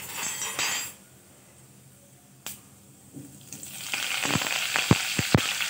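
Fresh curry leaves hitting hot oil with cumin seeds during a tadka (tempering), spluttering. A loud sizzle breaks out about four seconds in, with several sharp pops.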